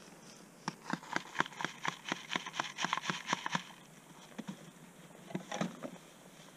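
Quick, sharp knocks and scrapes of hand work in gravelly soil at a ground trap set, about four a second for some three seconds, then a few scattered ones near the end.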